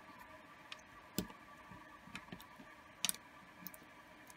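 Sparse small clicks and taps of metal clarinet keys being seated onto the upper joint by hand. The sharpest click comes about a second in, and a quick double click comes about three seconds in.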